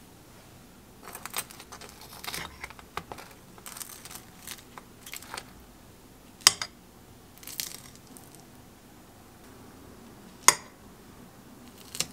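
Crisp, buttery croffle being cut and broken up with cutlery on a ceramic plate. The crust crackles and crunches in short runs, with a few sharp clinks of the metal fork against the plate.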